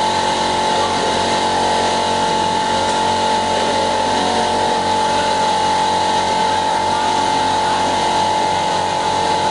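CO2 laser cutting machine running as it cuts: a steady high whine over a constant hiss.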